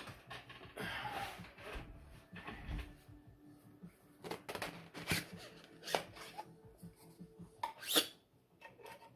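Handling noise from 3D-printed plastic charge tubes: rubbing and rustling, then a scatter of sharp plastic clicks as the pieces are pulled apart and fitted together, the loudest click about eight seconds in.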